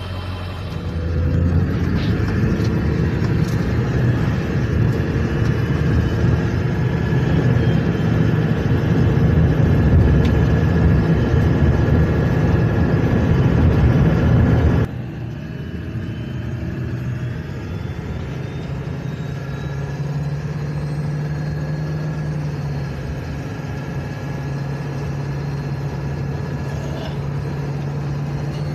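7.3 Powerstroke turbo-diesel V8 running with a steady high whistle over the engine sound, caused by a boost leak. About halfway through the level drops suddenly and the engine runs on quieter and steadier, with a fainter whistle.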